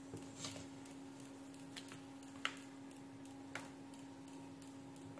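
Faint, irregularly spaced clicks of multimeter probe tips and hands handling a switch-mode power supply circuit board, four in all with the loudest about halfway through, over a steady low hum.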